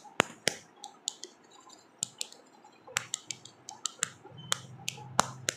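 Sharp clicks of one paintbrush tapped against another, irregular, about two or three a second: spattering white paint to make stars.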